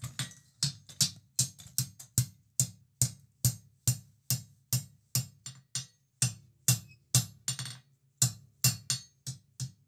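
Hand hammer striking a red-hot round steel bar on an anvil in a steady rhythm of about two and a half blows a second, with a brief pause near the end: the bar's bend is being closed up.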